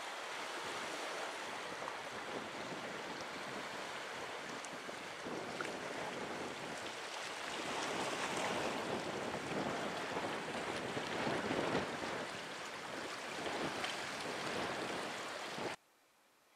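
Sea surf washing against the rocks of a reef shoreline, a steady rushing that swells louder around the middle and cuts off suddenly about a second before the end.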